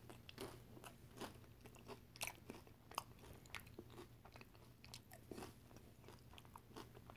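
Close-up, faint chewing of a mouthful of loaded nachos: tortilla chip with queso, salsa and meat, giving irregular soft crunches and wet chews throughout. A low steady hum runs underneath.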